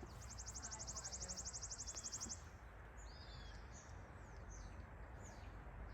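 Songbirds: one gives a rapid, even high trill lasting about two seconds, then short high chirps follow. A low outdoor rumble runs underneath.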